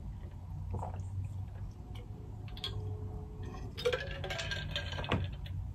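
A person drinking from an insulated metal water bottle: a few small clicks, then, about four seconds in, a stretch of drinking and swallowing sounds. A steady low hum runs underneath.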